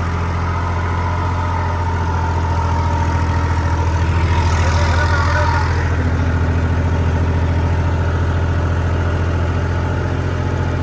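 New Holland tractor's diesel engine running steadily under load while it pulls a wide, fully opened disc harrow: a deep, even drone that swells slightly about halfway through.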